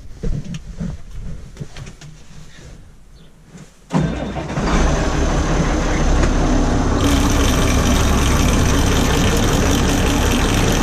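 A few low knocks, then about four seconds in the tractor-driven grain auger starts up and runs with a loud, steady mechanical noise that gets brighter about seven seconds in. The auger is being run after its bearings were greased and its chain lubed, to find where a squawk came from.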